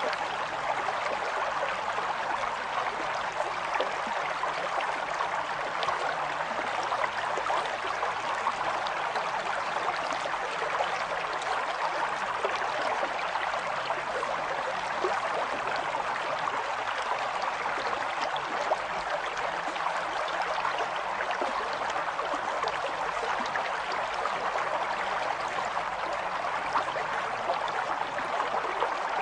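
Steady running-water sound like a stream, an even rushing hiss with fine crackle that holds constant with no pauses.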